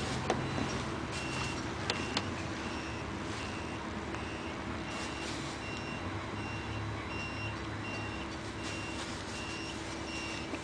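Vehicle reversing alarm beeping about twice a second, with a steady low engine rumble and a few sharp clicks near the start.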